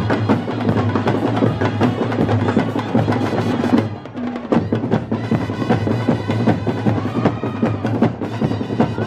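Brass band music: trumpets and other horns playing over a row of drums beating fast and densely. About four seconds in the playing drops briefly, then picks up again.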